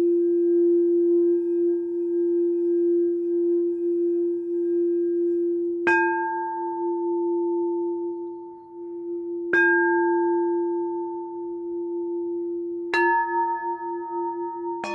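Singing bowls being played. One bowl holds a steady low hum throughout, and a higher bowl is struck three times, about every three and a half seconds, each strike ringing on over the hum. Another strike, with several higher tones, comes right at the end.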